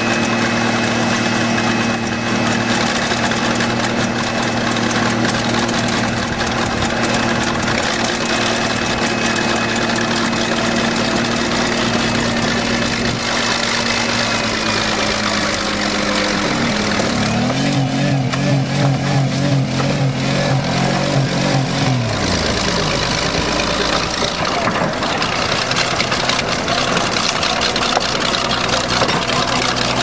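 Buick 3.8-litre V6 running at high revs with its throttle wedged open, beside a bulldozer's engine. Its steady note sags about halfway through, wavers up and down for several seconds, and then drops out under the remaining engine noise.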